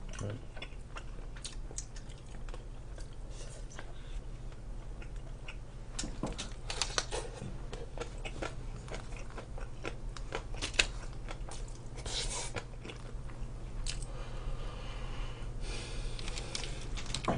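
A person chewing and eating with chopsticks: many short wet mouth clicks and smacks, with a steady low hum underneath.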